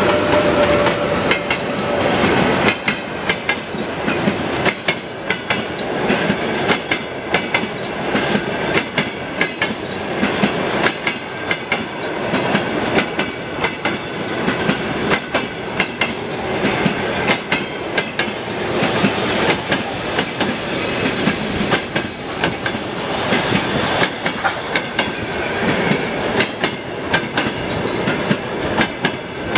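Passenger train coaches rolling past at speed, wheels clattering over rail joints in rapid clicks, with short high-pitched squeaks from the wheels and rail every few seconds.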